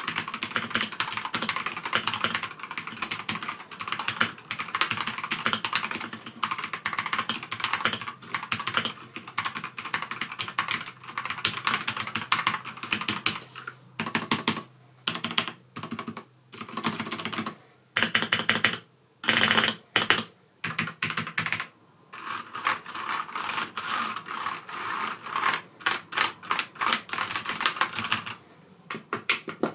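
Typing on a Redragon K673 Pro mechanical keyboard, with Redragon's own linear red switches in an all-plastic case that has no metal plate. It is a fast run of clacking keystrokes. About halfway through come single keys pressed one at a time, a fraction of a second to a second apart, and then fast typing again. The reviewer calls the sound cheap.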